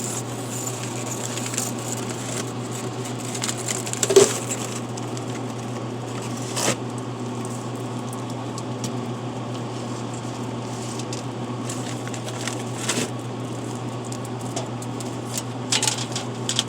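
Plastic bottles being handled and loaded into a drink vending machine's columns: a few scattered knocks and clicks, the loudest about four seconds in, over a steady low hum.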